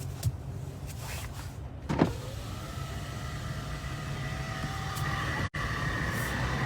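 A click about two seconds in, then a car's power window motor whining, its pitch rising slowly, over the steady low hum of the idling engine.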